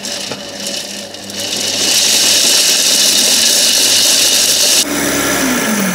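Blender-type food processor grinding shelled pistachios into powder. The motor noise builds over the first two seconds and holds steady, then stops suddenly near the end, leaving a falling whine as the blade spins down.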